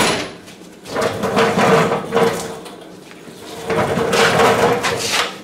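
Two drawn-out scraping, rubbing sounds, each lasting about a second and a half, of sprayer parts and hose being handled and slid against each other during assembly.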